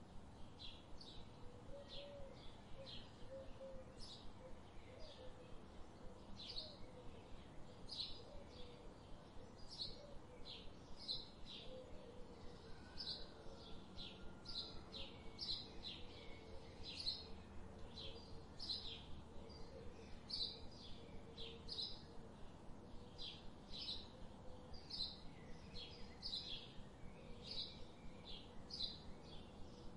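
A bird chirping: a faint, steady series of short high chirps, about two a second, over a quiet outdoor background.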